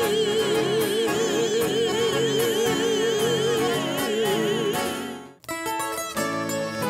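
A sertanejo vocal duo holds the song's final note in two-part harmony with wide vibrato over acoustic guitar, fading out about five seconds in. After a brief break, a new passage of plucked guitar music starts.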